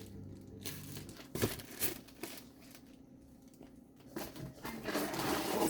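Packing material crinkling and rustling as an item is handled and unwrapped, with two light knocks about a second and a half in and louder rustling near the end.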